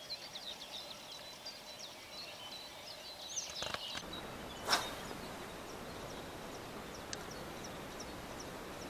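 Small birds chirping and singing faintly over a quiet background, the calls thinning out in the second half. A single sharp knock sounds about four and a half seconds in.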